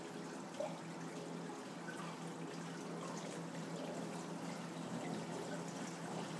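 Water trickling into the Durso standpipe drain of a reef aquarium's Bean Animal overflow box as the box refills after the return pump restarts, with faint scattered drips. A steady low hum sits underneath.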